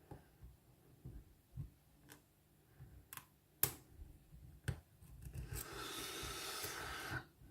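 Lock-picking tools working a Lockwood oval padlock: low knocks and a few sharp metallic clicks, then about two seconds of continuous scratchy rasping near the end, which stops suddenly.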